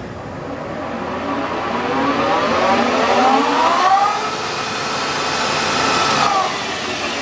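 Clausing Metosa engine lathe's headstock spinning up toward 2000 RPM in its top speed range (C3, motor on high): a gear whine rising in pitch over about four seconds, holding steady, then falling away about six seconds in.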